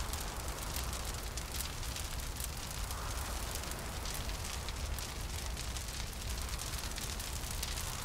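Fire crackling steadily with many sharp little pops over a low rumble, with a hollow wind swelling about three seconds in.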